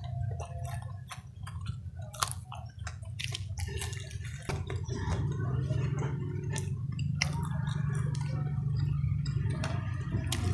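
Close-up chewing and crunching of crispy fried vegetable fritters (bakwan), with scattered sharp crackles and wet mouth smacks. A steady low hum runs underneath.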